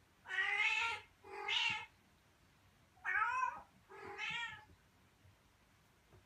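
A cat meowing four times, in two pairs: two meows in the first two seconds, then two more between about three and four and a half seconds in.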